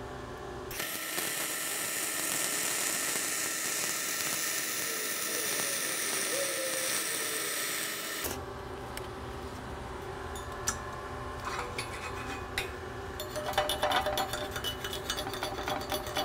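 Flux-core wire welding overhead: the arc crackles and hisses steadily through the final cap pass, starting just under a second in and cutting off abruptly after about seven seconds. Scattered clicks follow, then a dense run of rapid clicks and scratches near the end.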